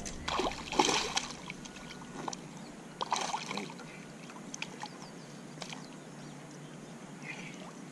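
Water splashing at the shoreline as a hooked bass thrashes while it is landed by hand. There are short splashy bursts about a second in and again around three seconds in, then a few small splashes.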